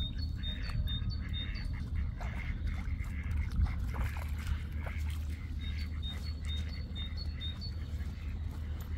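Outdoor riverside ambience: a small bird repeats a high, thin note several times a second in two runs, over a steady low wind rumble on the microphone.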